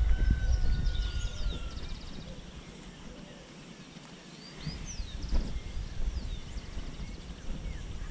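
Outdoor paddock ambience: a low rumble that fades for about two seconds midway and then returns, with small birds chirping and trilling over it.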